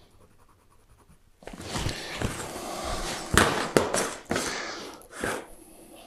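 A long straightedge slid and set into place on a painted steel roofing sheet: a couple of seconds of scraping, with several sharp knocks as it is positioned.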